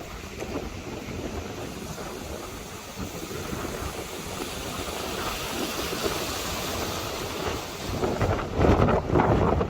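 Storm wind and heavy rain, a steady rushing that builds slowly, with strong gusts buffeting the microphone near the end.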